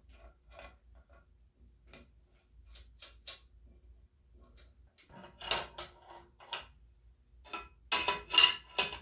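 Hand tools and steel parts clinking against a cast-iron drill press: light scattered clicks at first, then louder rattling metal clanks in the second half as an adjustable wrench is worked on a clamp on the drill-press table, loudest near the end.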